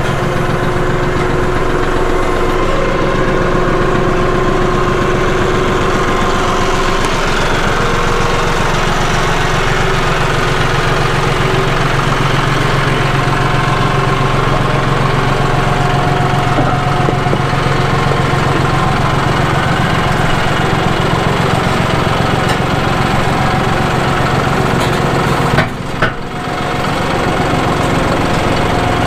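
John Deere 5055E tractor's three-cylinder diesel engine running steadily at a constant speed while the tractor moves over a wooden trailer deck, with one brief knock and dip in level near the end.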